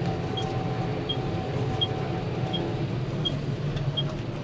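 Tractor engine running steadily while driving, heard from inside the cab, with a short high-pitched beep repeating evenly about every three quarters of a second.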